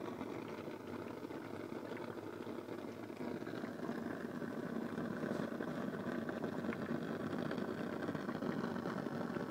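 Homemade gasoline-vapour burner burning with a steady, rough rushing noise.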